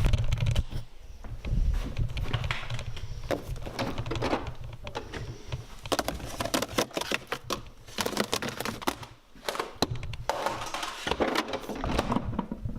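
Irregular clicks, knocks and rustling of objects being handled, with a few sharper clacks.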